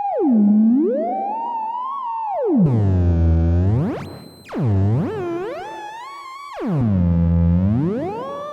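AliExpress theremin playing one of its built-in synth voices, a buzzy tone rich in overtones that swoops far down in pitch and back up about four times, with a light reverb.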